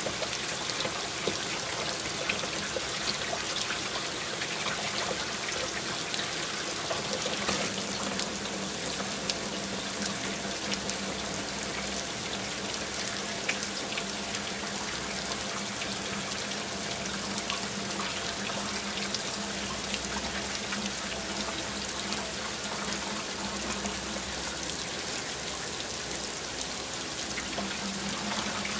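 Heavy rain falling steadily: a dense, even hiss with scattered drips ticking. A low steady hum joins about a quarter of the way in and drops away near the end.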